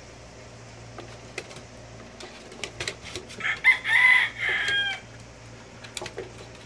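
A rooster crowing once: a call of several syllables about halfway through, the last one drawn out and falling in pitch. A few light clicks and taps around it.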